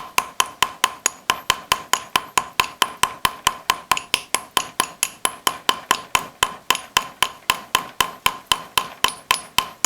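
Rapid, light hammer taps, about five a second, forming the head on a copper rivet held in a hardened steel tube former; each tap has a short metallic ring. The tapping is kept gentle so the copper is not bent into the tube, where it would jam.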